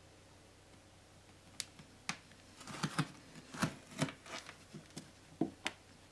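Irregular sharp clicks and knocks, about a dozen, clustered around the middle, from a camera being handled and repositioned.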